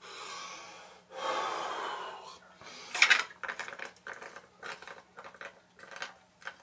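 A man chugging from an upended glass bottle of fortified wine. Two long breaths come first, then a sharp clink about three seconds in as the bottle reaches his mouth, then quick repeated gulps and glugs, about three a second.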